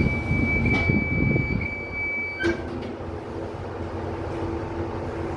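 Passenger lift car setting off downward. A steady high electronic beep sounds until about two and a half seconds in and cuts off with a clunk, then a steady low hum from the lift as the car travels down.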